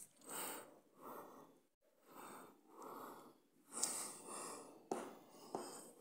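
A quick run of short, noisy, wheezy breaths or snuffles close to the microphone, with a brief pause a little under two seconds in.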